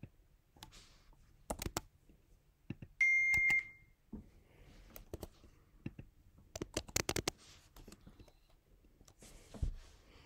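A single steady electronic beep lasting about half a second, about three seconds in, amid scattered clicks, taps and rustles of small objects being handled at a desk.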